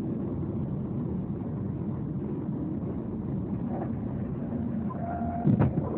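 Steady road and engine noise heard from inside a moving car, with one sudden loud thump about five and a half seconds in.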